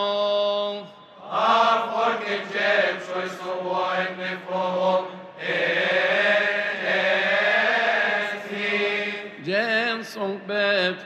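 Coptic liturgical chant sung by male deacons: a held solo note that ends about a second in, then a group of deacons chanting together, and a single voice taking up the melismatic line again near the end.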